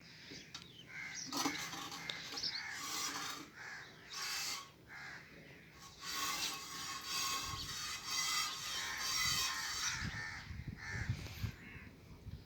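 Birds giving harsh, repeated calls, one after another, each lasting up to about a second. In the second half there are low thumps underneath.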